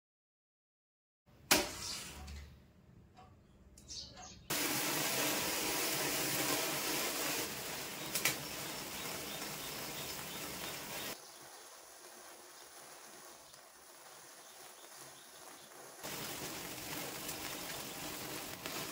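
A firework burning and spraying sparks with a steady fizzing hiss, starting a few seconds in after a sharp click. The hiss drops quieter for a few seconds partway through and then picks up again, with a single pop along the way.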